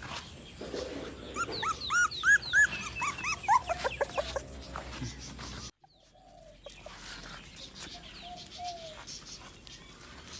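A run of short, high-pitched animal calls, the later ones stepping down in pitch, then fainter, lower calls after a brief drop-out about halfway through.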